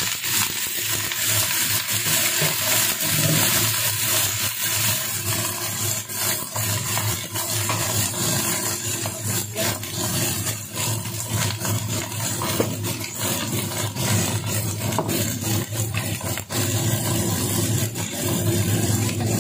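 Choy sum stir-frying in hot oil in a wok: a loud, steady sizzle, with frequent short taps and scrapes of a utensil against the pan.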